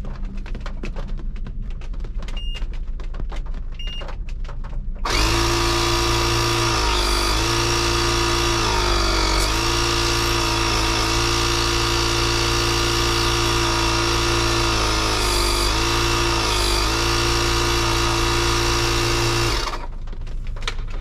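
Two short electronic beeps, then a ShockFlo cordless portable tire inflator's compressor motor starts about five seconds in. It runs for about fifteen seconds with a loud, steady buzz, its pitch dipping briefly a few times, and then cuts off. The air chuck is not on a tire, so it runs unloaded.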